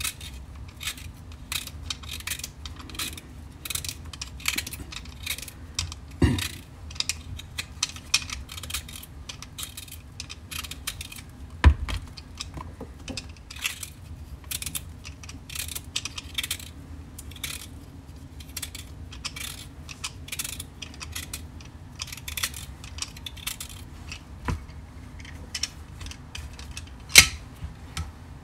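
A vegetable peeler scraping the skin off raw beetroots in quick repeated strokes, a few every second. Three sharper knocks break in, the loudest near the end.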